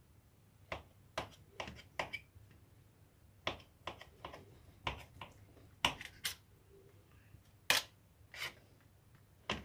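A small kitchen knife cutting through ropes of stretched string cheese, its blade knocking against the foil-lined metal tray underneath: a string of sharp, irregular clicks, about fifteen in all.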